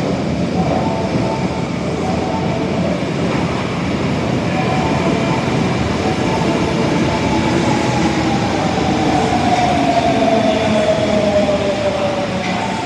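Osaka Metro 22 series subway train running, with a steady rumble of wheels on rail. From about halfway a motor whine falls slowly in pitch, as the train slows down.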